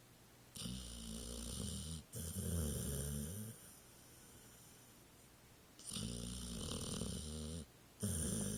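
Pit bull snoring: two long snores a few seconds apart, each in two parts with a short break between the in-breath and out-breath.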